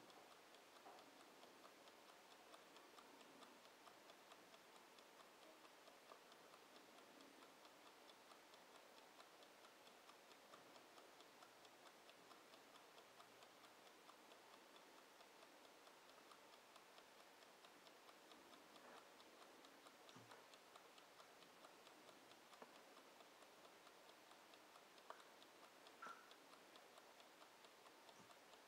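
Mechanical wind-up kitchen timer ticking steadily and faintly, with a couple of slightly louder clicks later on.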